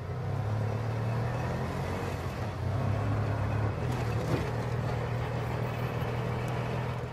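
Auto-rickshaw engine running steadily as the three-wheeler drives slowly across a dirt yard, a continuous low engine hum.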